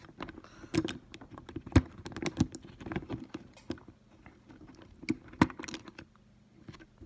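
Irregular small clicks and taps of plastic and metal parts being handled as a motor is pressed into the chassis of an HO-scale Athearn F7 model locomotive. The two sharpest clicks come about two seconds in and about five and a half seconds in.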